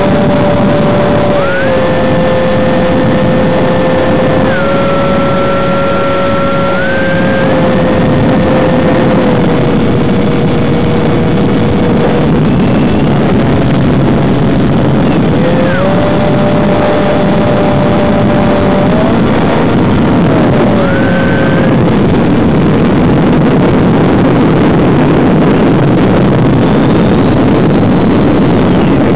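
Onboard audio from a small electric FPV plane: the brushless motor's whine holds a pitch and steps up and down with the throttle, over a loud, steady rush of air noise. The whine drops away about twelve seconds in and again a little past twenty seconds as the throttle is pulled back, leaving mostly the rush.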